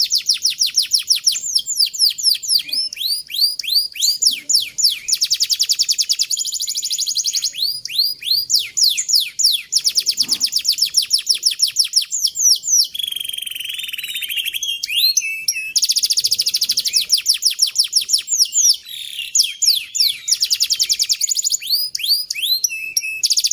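Canary singing a long, unbroken song of fast trills, each run of rapidly repeated notes held for a second or more before switching to a new note, as in the long rolls of a canary song.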